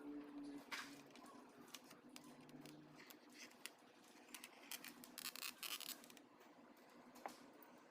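Faint scattered clicks and short scraping sounds of small hard objects being handled, over near silence.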